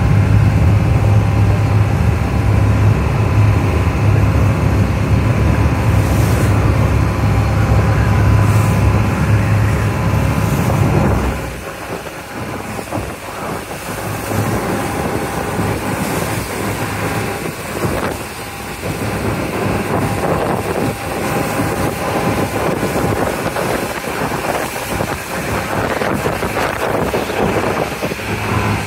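Small harbour ferry under way: its engine runs with a steady low hum, mixed with water rushing and splashing along the hull and wind on the microphone. About eleven seconds in the engine hum drops away sharply, leaving mostly splashing water and wind.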